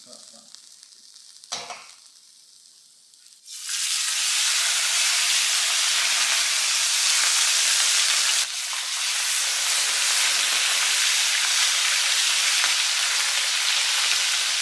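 Two whole flatfish frying in hot oil in a wide steel pan, a loud, steady sizzle. It starts suddenly about three and a half seconds in, after a quieter stretch with a single click.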